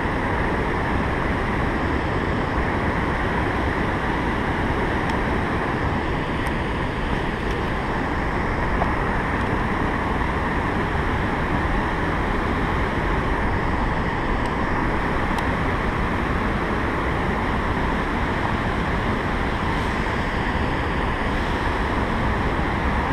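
Steady rush of white water churning below a river dam, an even noise that does not change.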